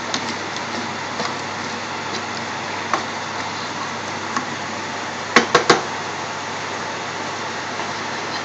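A spatula stirring chunky curry in a stainless steel pan with light scattered scrapes and clicks, over a steady hiss. About five and a half seconds in come three quick sharp knocks, as of the spatula struck on the pan.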